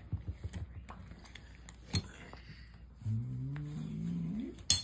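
Thick brown slime being pressed and pulled apart by hand, crackling with many small pops and a louder snap about two seconds in. About three seconds in a low humming tone rises slowly for a second and a half, followed by a sharp click.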